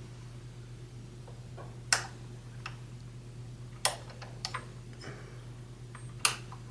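Three sharp clicks about two seconds apart, with a few fainter ticks between them, over a low steady hum.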